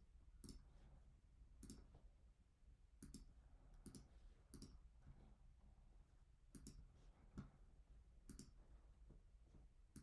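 Faint computer mouse clicks, about a dozen at irregular intervals, over near-silent room tone with a low steady hum.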